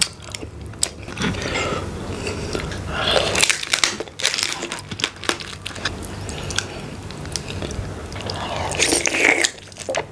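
Close-miked eating of saucy mud crab and tiger prawn: irregular biting, chewing and crunching with wet mouth clicks, busiest about a third of the way in and again near the end.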